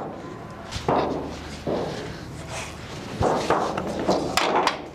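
Bird-cage tray being handled and set down on a tiled floor: scraping and shuffling, a dull thump about three seconds in, and a few sharp clicks near the end.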